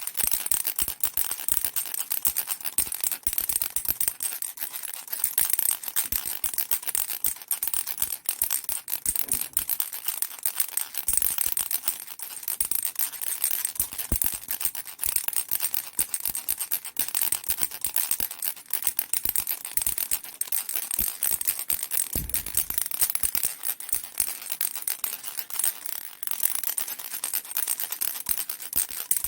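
A baby rattle shaken without pause, making a dense, fast, bright clatter.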